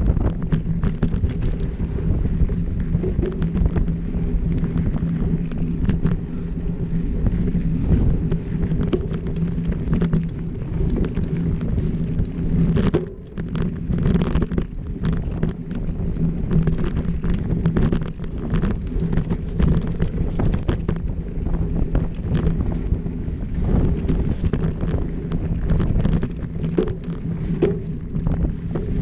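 Mountain bike descending a dirt singletrack at speed: knobby tyres rolling over packed dirt and the bike rattling over bumps, with wind buffeting the camera microphone. The noise eases briefly about thirteen seconds in.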